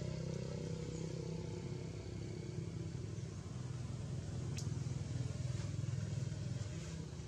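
An engine running steadily, a low, even drone like a motorbike idling, with one faint click about halfway through.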